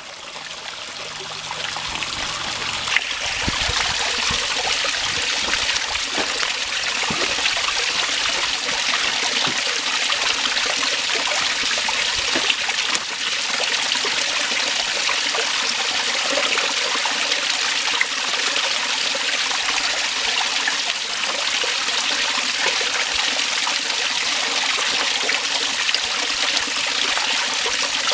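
Small creek water trickling and splashing steadily, fading in over the first couple of seconds.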